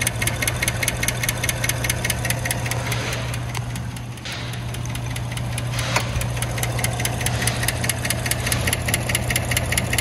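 5.3-litre V8 idling with a sharp, rapid, evenly spaced valve-train tick from the driver's side. The tick keeps time with the cylinder one rocker arm, which the mechanic suspects is a loose rocker bolt, failed rocker needle bearings or a flat spot on the camshaft.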